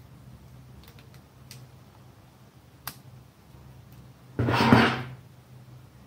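Close-up handling of an emergency stop push button and its contact block while a red wire is fed to a terminal: a single sharp click about three seconds in, then a brief louder rustling scrape about four and a half seconds in.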